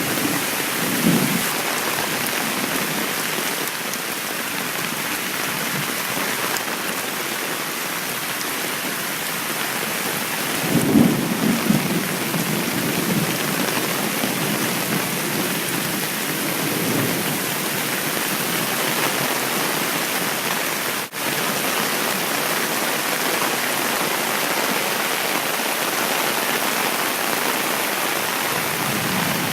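Heavy rain and rushing storm-water runoff making a loud, steady hiss, with a few low rumbles: one about a second in, a stronger one around eleven seconds, and another near seventeen seconds.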